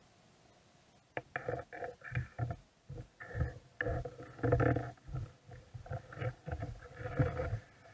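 Irregular underwater knocks and gurgles close to the camera, starting about a second in and coming in uneven clusters.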